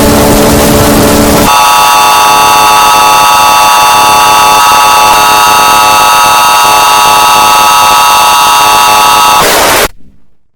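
Loud fake Emergency Alert System alarm. A harsh, low buzzing tone lasts about a second and a half, then gives way to a steady, multi-pitched attention tone that holds for about eight seconds. It ends in a brief burst of static and cuts to silence near the end.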